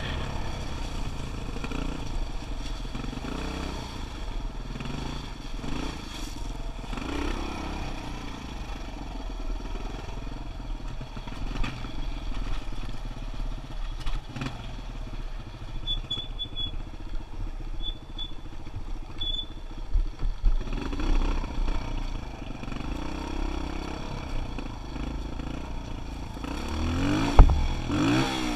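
Kawasaki KLX125 dirt bike's single-cylinder four-stroke engine running under way, its pitch rising and falling several times as the throttle is opened and eased. There is a sharp knock near the end.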